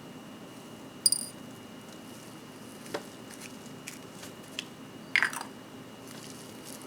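Small metal clicks and taps of watchmaker's tools handling the parts of a mechanical watch movement: a sharp tick with a brief metallic ring about a second in, a louder click about five seconds in, and a few fainter taps between.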